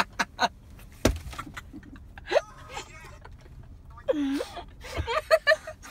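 A few short sharp clicks, a single louder knock about a second in, then brief murmured voices and another cluster of clicks near the end, from people handling food and wrappers in a car.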